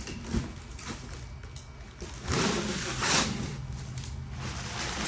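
Cardboard shipping box being handled and opened, with a few knocks, then packing paper rustling and crinkling for about a second midway through.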